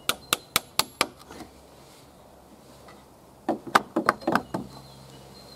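Hammer driving a nail into a wooden frame joint: five quick, sharp strikes in the first second, then after a pause of about two seconds a second, faster run of about seven blows.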